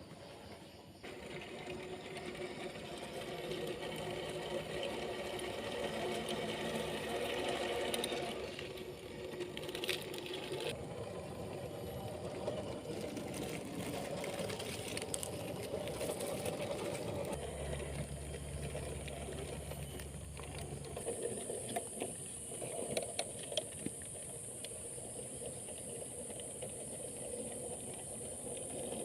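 Electric motor and gears of an RGT EX86100 RC rock crawler whirring as it drives, the whine shifting in pitch several times.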